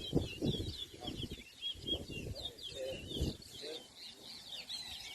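Caged towa towa (chestnut-bellied seed-finch) singing a fast, unbroken string of short, high warbled notes in a song race. Uneven low thumps run underneath.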